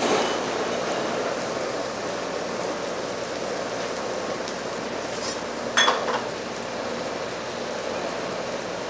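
Shrimp sizzling on hot stones in a stainless steel pot while Shaoxing wine burns off over them, a steady hiss. About six seconds in there is one sharp metallic clink.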